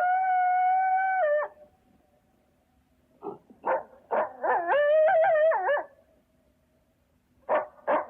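A dog howling and barking: one long, steady howl that drops off about a second and a half in, then two short barks, then a longer wavering howl. Two more barks come near the end.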